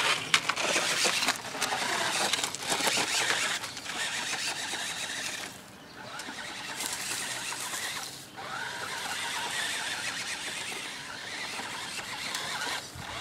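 Nikko Panther electric RC car driving: its motor whines and rises and falls with the throttle, over a hiss of the wheels on paving and dirt. The sound drops away briefly about six and eight seconds in.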